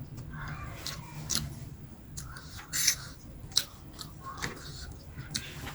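Close-up eating sounds of a person chewing keema noodles: wet chewing with sharp mouth clicks and smacks about once a second, over a steady low hum.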